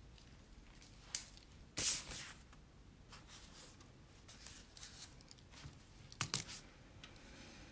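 Scattered rustling and clicking handling noises close to the microphone, with a short, louder rustle about two seconds in and a few clicks a little after six seconds.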